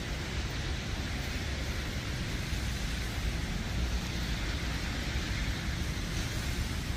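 Steady outdoor street ambience on a wet, snowy night: a continuous hiss over a low rumble, with no distinct footsteps standing out.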